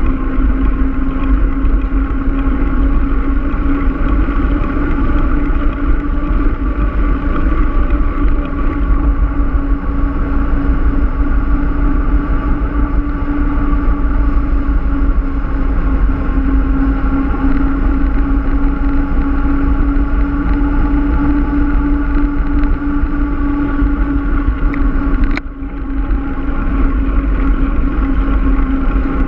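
Mountain bike rolling along asphalt: a steady hum from the tyres on the road mixed with wind rushing over the microphone. The sound dips briefly about 25 seconds in.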